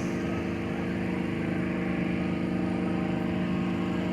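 Gas-engine inflator fan running steadily at constant speed, a continuous even drone, blowing air into a hot air balloon envelope.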